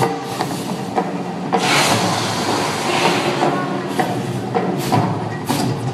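Volcano show at The Mirage erupting: gas flame bursts rushing over the show's loud soundtrack of held low tones and sharp hits. The strongest rush comes about two seconds in.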